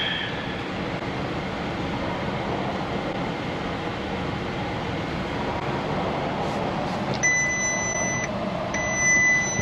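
A steady rushing noise runs throughout. About seven seconds in, two long electronic warning beeps of about a second each sound at one steady pitch.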